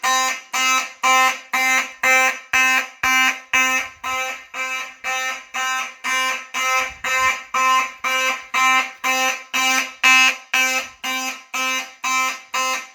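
Simplex 4903-9101 fire alarm horn sounding in a pulsed pattern, about two even blasts a second: the panel's alarm signal after a 4W-B smoke detector was set off with real smoke.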